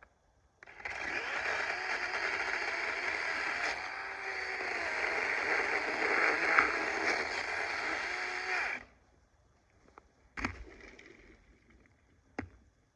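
DeWalt 20-volt battery chainsaw cutting through wood for about eight seconds, its motor whine dipping and recovering in pitch under load, then stopping suddenly. Two sharp thuds follow, about two seconds apart.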